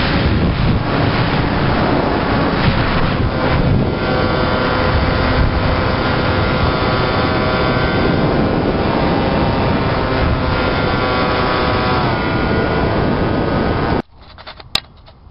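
Homemade RC pusher plane's motor and propeller whine mixed with heavy wind rush over the onboard camera's microphone, the whine's pitch shifting a few times with throttle. About 14 s in the sound drops off abruptly to a much quieter background.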